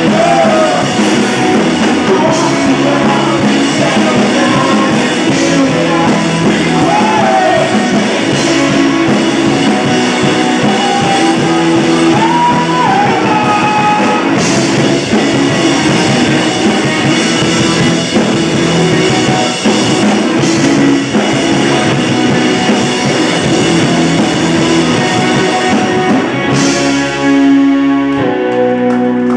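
Live rock band playing: electric and acoustic guitars, bass and drum kit, with a singing voice over them. About 27 seconds in the drums stop and strummed guitar chords ring on alone.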